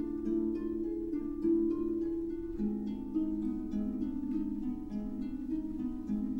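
Background music: a run of quick plucked-string notes over held lower notes.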